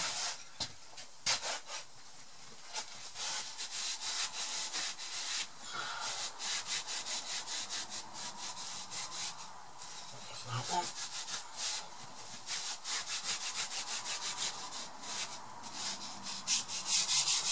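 Quick, rhythmic scrubbing strokes of hand washing-up, a utensil being scrubbed in the washing-up bowl, going in runs with short pauses.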